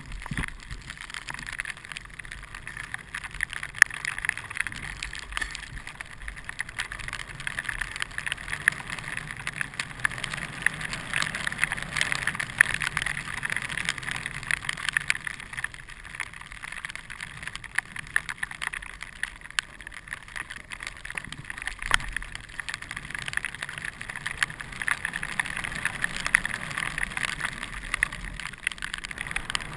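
Steady scraping hiss of edges sliding and carving down groomed snow on a downhill run. It swells and fades with the turns and has small clicks and chatter scattered through it.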